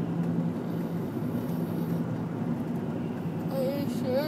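Steady road and engine noise of a moving car heard from inside the cabin, with a low even hum. Near the end a person's voice comes in with a drawn-out sound that bends in pitch.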